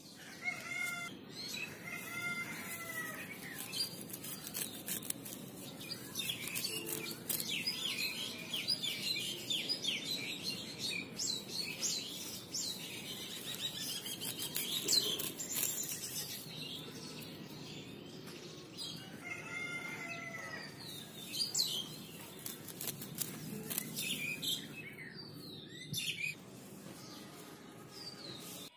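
Small birds chirping, with a dense run of rapid chirps in the middle and a few longer calls. Alongside them, grass blades rustle and snap as they are plucked by hand.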